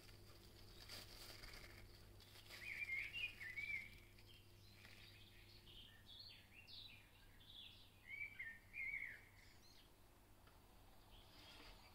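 Faint bird chirping and twittering, with two short warbling phrases about three seconds and eight seconds in, over a low steady hum.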